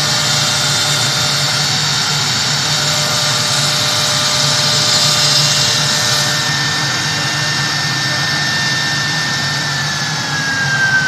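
Three-spindle CNC router running, with a steady high hiss over a low hum. Near the end a high whine starts to drop in pitch.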